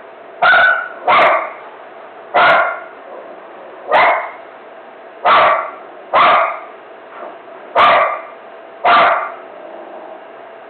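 A dog barking in a steady run of eight single barks, each a second or so apart.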